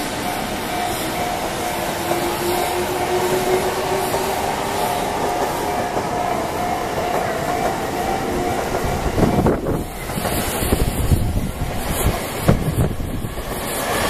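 Electric commuter train running past on the tracks: its motor whine rises slightly in pitch, then from about two-thirds of the way through a louder rumble and irregular clatter of wheels on the rails takes over.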